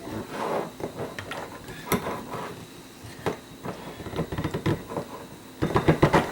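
Cucumber spears being packed tightly into a jar: irregular knocks and clicks of the spears against the jar and each other, with a quick cluster of knocks near the end.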